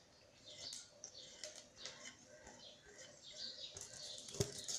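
Whole cumin seeds, a dried chilli and a bay leaf faintly sizzling and crackling in hot mustard oil in a kadai as a spatula stirs them, with scattered clicks and one sharper knock of the spatula against the pan about four and a half seconds in.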